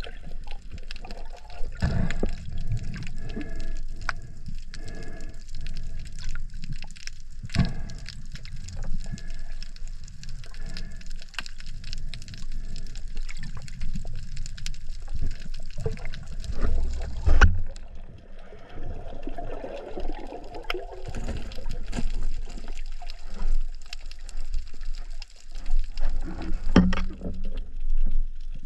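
Underwater sound of a diver swimming with a speargun: steady water noise with scattered sharp knocks and clicks. The loudest is a thud about seventeen seconds in, and a busier stretch of noise follows a couple of seconds later.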